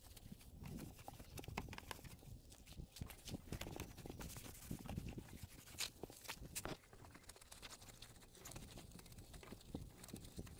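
Cloth scrubbing a foam-covered motorcycle by hand: irregular soft rubs, taps and knocks, with a few sharper clicks about six seconds in.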